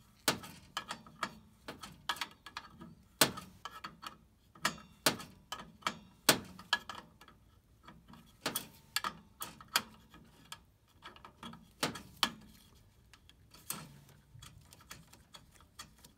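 Irregular metallic clicks and taps of a hand tool working loose the pilot tubing fitting on a Honeywell intermittent-pilot gas valve.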